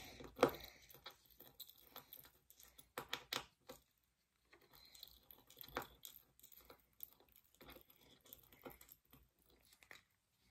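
Scattered small clicks, taps and light rustling from hands fitting trucks and their small hardware onto a fingerboard deck, with a few sharper taps about half a second in, around three seconds in and near the middle.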